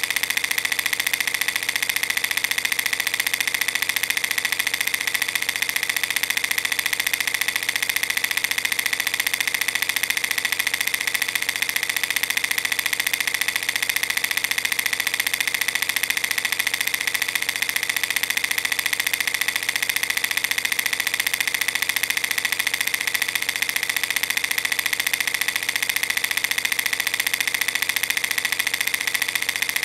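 Film projector running: a steady, fast mechanical clatter and whir that does not change.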